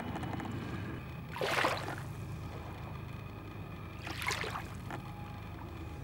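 Shallow water splashing and lapping at a sandy shoreline, with two louder washes about a second and a half in and again about four seconds in, over a steady low rumble.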